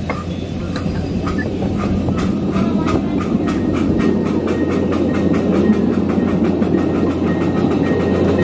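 Ride-on miniature train running along its track, the wheels clicking over the rail joints about four times a second above a steady low running hum.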